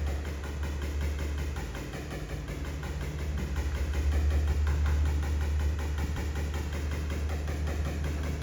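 A steady, low engine drone with a faint even pulse, like an engine idling.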